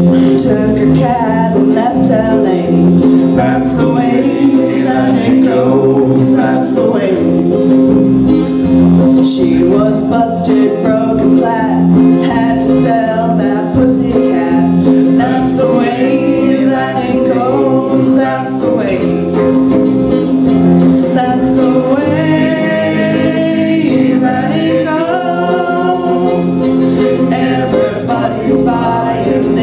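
Live song on acoustic guitar and electric bass, with singing over it and a few held notes past the middle.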